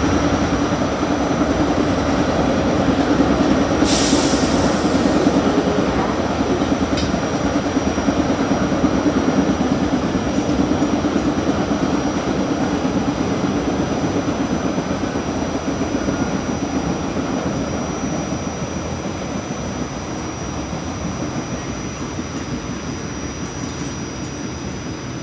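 RTA Blue Line light-rail car running along the track with a steady rumble, a short hiss about four seconds in, and the sound gradually easing off over the last third.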